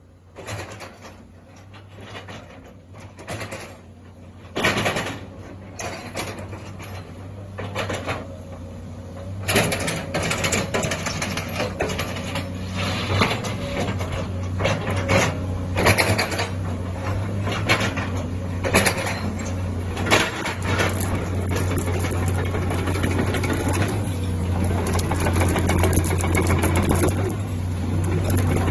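Sany 215 crawler excavator's diesel engine running with a steady low hum, getting louder about a third of the way in, with frequent clanks and knocks over it.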